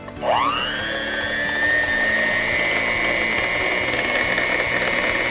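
Electric hand mixer switched on about a quarter second in: its motor whine rises quickly in pitch, then runs steadily as the beaters work through a thick sweet potato mixture in a glass bowl.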